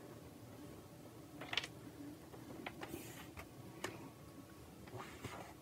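Faint, scattered clicks and light taps, about half a dozen, from small tools being handled on a workbench, over a low steady room hum.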